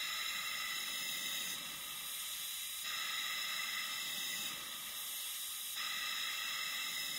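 Steady hiss of oxygen flowing through a Flow-Safe II+ BiLevel CPAP generator and face mask. The hiss brightens and dulls in turn about every one and a half seconds as the device runs in bi-level mode, holding about 10 on inspiration and 5 on expiration.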